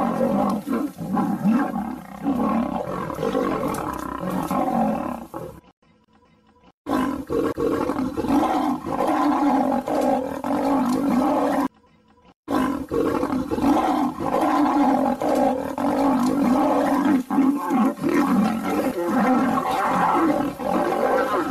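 Lion roars and snarls, as in a lion fight, dubbed over the picture: loud and continuous, broken twice by about a second of near silence.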